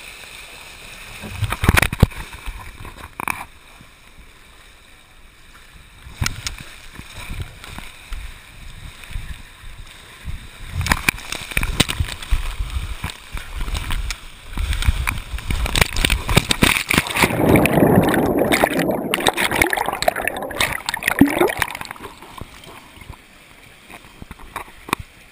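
Water rushing and gurgling past a body-worn action camera as a rider slides down a plastic water slide, with sharp knocks from the body and camera bumping the slide walls. The loudest stretch of rushing and splashing comes about two thirds of the way through, as the rider plunges into the splash pool.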